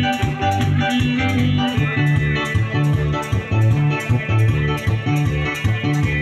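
A live dance band plays, with a bouncing bass line that a sousaphone likely carries under a steady, evenly repeating percussion beat.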